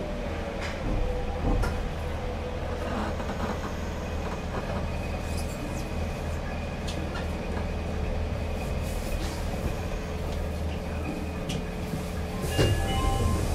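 Nagoya subway 5050-series train with Toshiba GTO-VVVF traction equipment running, heard from inside the car: a steady low rumble of wheels on rail with a steady mid-pitched tone and scattered clicks from rail joints. Short higher tones start near the end.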